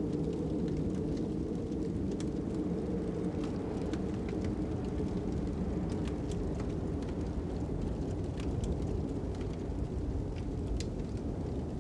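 A fire crackling, with scattered sharp pops, over a steady low rumble of wind.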